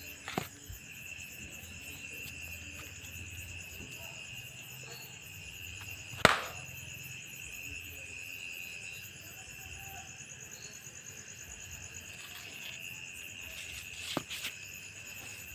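A sandal slapping against a wall to swat mosquitoes: one sharp smack about six seconds in, the loudest, with a lighter slap near the start and two quick ones near the end. Under it runs a steady chirring of night insects.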